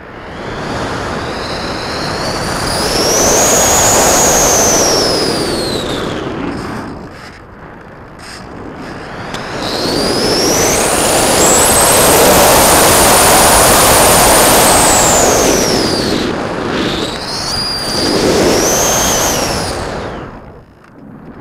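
Electric motor and propeller of an R-Planes Pioneer FPV plane, heard from the onboard camera. A high whine rises and falls with the throttle in three surges, the middle one longest, over rushing air, dipping between the surges.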